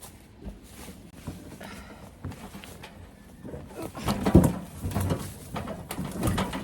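Loaded wheelbarrow jolting and rattling over a rough downhill woodland track, its load of tools and gear clattering, heard from inside the barrow. The knocks get busier and louder about four seconds in, with one heavy jolt.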